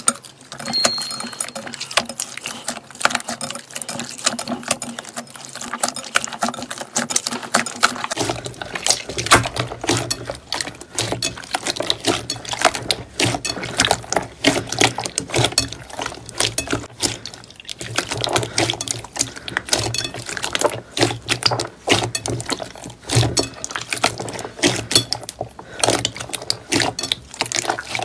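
Hands squeezing and kneading glossy metallic slime: continuous wet squelching with rapid, irregular clicks and pops. A low steady hum comes in about eight seconds in.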